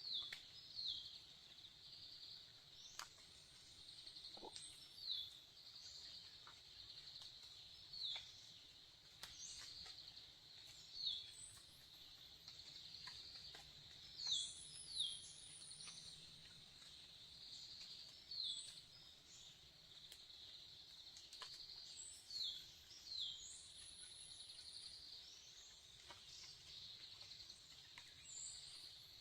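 Faint forest ambience: an insect chirring steadily in a fast pulse, with small birds giving short calls that drop in pitch, often in pairs, every few seconds, and a couple of higher arching whistles.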